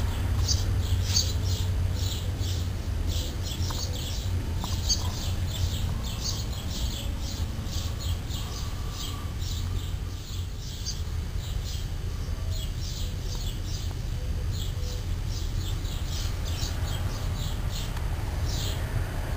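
Small birds chirping: short high chirps repeating several times a second, with brief pauses, over a steady low rumble.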